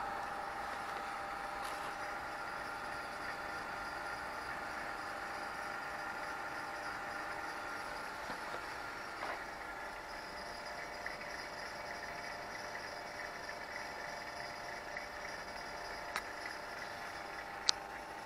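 WEG electric motor driving a Fenner gearbox, running steadily with a whine of several held tones. A sharp click near the end.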